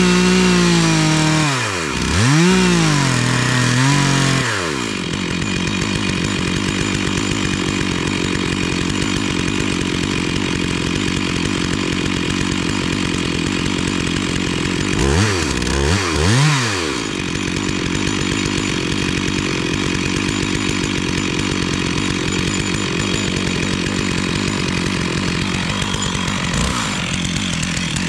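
Stihl two-stroke chainsaw blipped up and down three times in quick succession, then idling with an even pulse. About halfway through it is revved twice more, then it settles back to idle.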